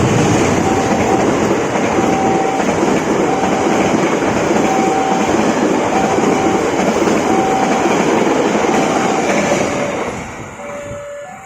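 A train passing close by at a level crossing: a loud, steady rush of wheels on rail that fades away about ten seconds in. Over it the crossing's warning alarm sounds a short repeated tone about once a second, dropping to a lower note near the end.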